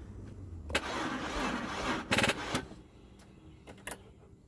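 2002 Audi A4 turned over on a weak battery: a click, about a second of whirring, then a quick burst of rapid clicking and a few single clicks afterwards, the starter solenoid chattering because the battery does not have enough charge to crank the engine.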